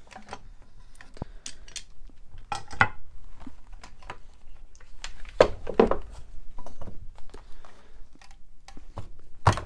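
Quick-release bar clamps and a C-clamp being loosened and taken off a glued wooden chair frame. Their metal and plastic parts give a series of separate clicks and knocks, and the sharpest knock comes just before the end.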